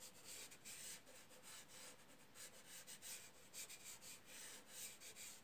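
Fingertips rubbing soft chalk pastel into rough, textured drawing paper: faint, repeated short blending strokes.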